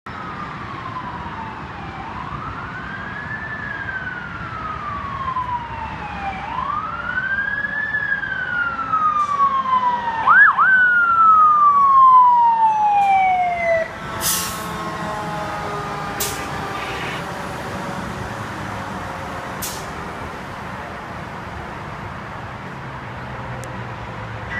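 A fire truck's Federal Q2B mechanical siren winding up and slowly coasting down in long wails. It is loudest as the truck passes, a little before halfway, and stops after one last long coast-down. After that the truck's engine runs on, with a few short sharp hisses.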